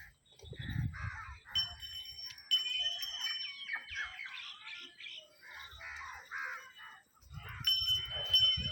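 Crows cawing repeatedly, with a high steady ringing tone that comes in about one and a half seconds in and again near the end.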